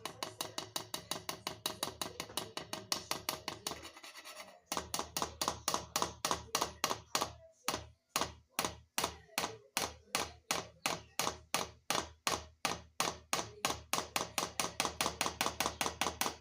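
Fine kitchen sieve being knocked rapidly and steadily to sift ground powder through it, about five knocks a second, with a slight ring to each knock and a short pause about four seconds in.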